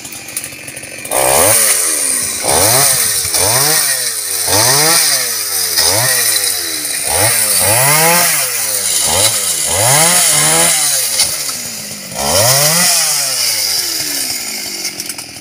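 Two-stroke chainsaw revving up and down over and over, about once a second, as it cuts through the limbs of a felled mù u (Alexandrian laurel) tree. After one last rev it drops back toward idle near the end.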